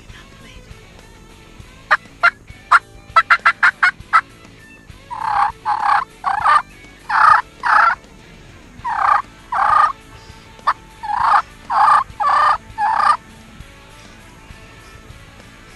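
Wild turkeys calling close by: a quick run of sharp, clicking clucks about two seconds in, then loud calls in groups of two to four over the next eight seconds.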